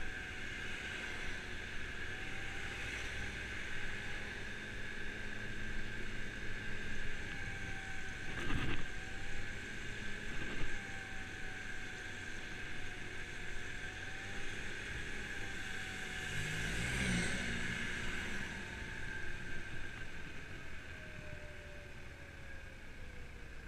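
Kymco Agility 50cc scooter running at riding speed, its engine note rising and falling with the throttle and dropping near the end as it slows, over tyre hiss on the wet road. Two brief knocks about a third of the way in.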